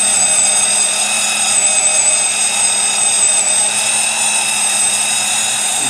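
Vevor 40H magnetic drill running steadily with a 1-1/2 inch carbide-tipped annular cutter cutting into thick steel, a steady high-pitched motor whine over the cutting noise. The feed is still light, with the carbide teeth just bedding into the cut.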